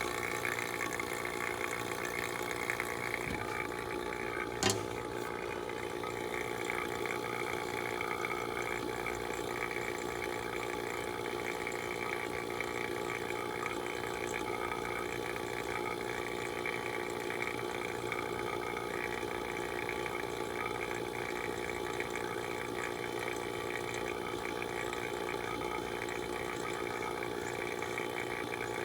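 HVAC vacuum pump running steadily, evacuating the new heat pump's refrigerant lines to pull moisture out of the system. A single sharp click sounds about five seconds in.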